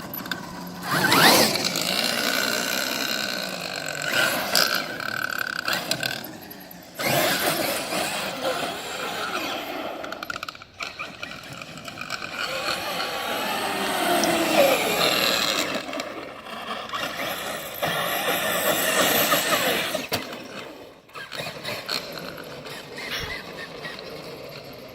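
Traxxas X-Maxx RC monster truck running in several bursts with short pauses between them, its motor whine rising and falling in pitch with the throttle over the noise of the drivetrain and tyres. The owner puts a ticking noise down to a broken part that lets an axle rub.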